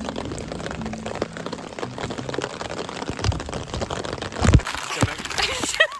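Raindrops pattering on a plastic bag wrapped around the phone, a close stream of small ticks over a wet hiss, with two dull low thumps about three and four and a half seconds in.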